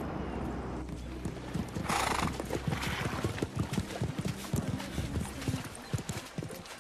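A horse galloping on a dirt track, its hoofbeats fast and uneven. There is a brief loud burst of noise about two seconds in.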